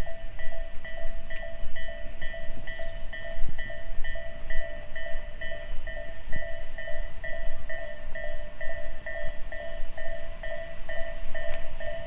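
Japanese level-crossing warning bell ringing: an electronic two-tone ding repeating evenly, about two and a half strikes a second, as the crossing signals flash for an approaching train.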